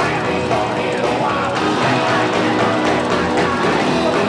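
Loud live psychobilly band music: upright bass and electric guitar over a driving drum beat.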